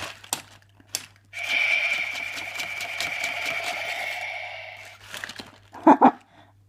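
Remote-control toy dinosaur sounding a roar through its small speaker, one steady rasping call of about four seconds, with a few clicks before it and two sharp knocks near the end.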